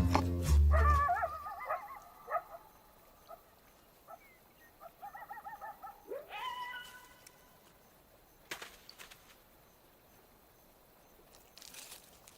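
Background music ends in the first second or so. Then come an animal's wavering calls, a call that rises in pitch and then holds about six seconds in, and a couple of sharp clicks later.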